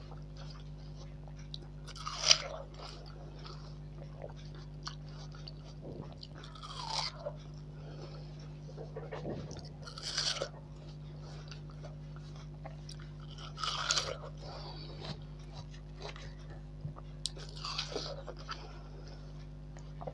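Bites into juicy watermelon slices, each a crisp wet crunch followed by chewing, about five bites a few seconds apart. A steady low hum runs underneath.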